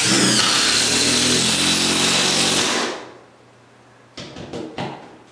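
Cordless impact driver running for about three seconds as it drives a 3.5-inch by 1/4-inch lag screw through ceiling drywall into a 2x6 and joist, then stopping; a few light clicks follow near the end.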